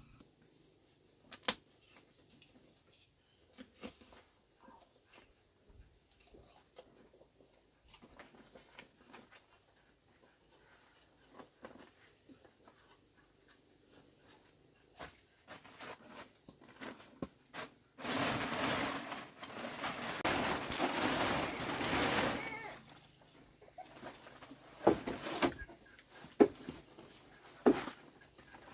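Insects, crickets or similar, chirping steadily throughout as two thin high tones, with scattered small clicks and knocks. About two-thirds of the way in, a loud noise of unclear source, rustling or scraping, lasts about four seconds, followed by a few sharp knocks.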